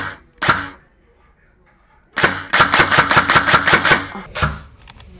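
G&G RK74 airsoft electric gun (AEG) firing: two single shots about half a second apart, then a rapid full-auto burst of nearly two seconds, then one more single shot near the end.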